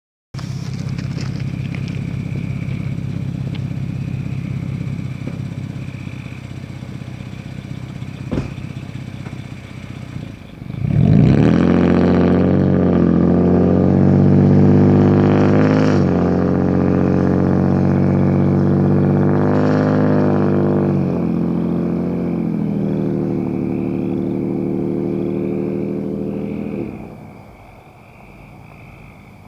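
Ford F-150 pickup's engine and exhaust running at low revs, then revving hard about eleven seconds in as the truck accelerates away, the pitch climbing and breaking twice at the gear changes. The engine sound drops away sharply near the end as the truck gets distant.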